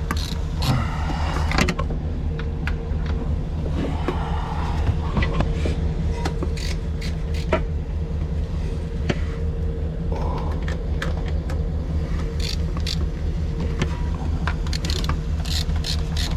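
A vehicle engine idles steadily in the background, with scattered metallic clicks and knocks from tools working on the truck's battery terminals.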